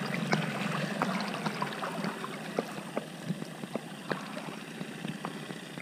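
Sea water sloshing and splashing around a camera held at the surface by a swimmer, with many small sharp drips and clicks of water on the camera. A steady low hum runs underneath.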